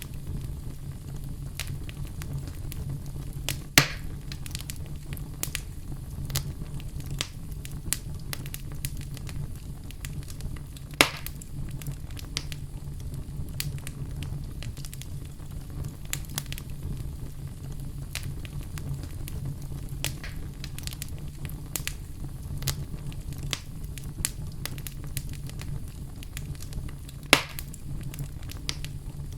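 Campfire burning, with a steady low rumble and frequent small crackles, and three louder pops: one about four seconds in, one about eleven seconds in, and one near the end.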